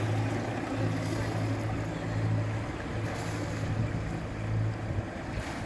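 Sailing yacht's engine running steadily at low revs as the boat motors slowly, a low hum that swells and fades slightly, with wind noise on the microphone.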